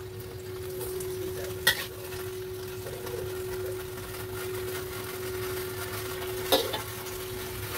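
Stir-fry being scraped out of a wok onto a plate: light scraping and stirring noise with two sharp clinks, one near two seconds in and one near the end, over a steady hum.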